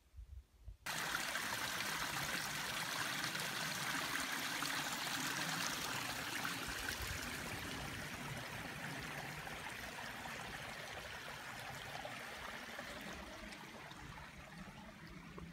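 Steady rush of running water from a stream, cutting in abruptly about a second in and slowly growing fainter towards the end.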